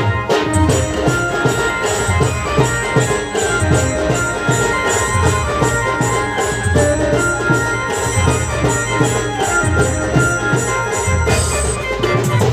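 Band music playing a garba song: a steady, driving drum beat with jingling percussion under a sustained melody line.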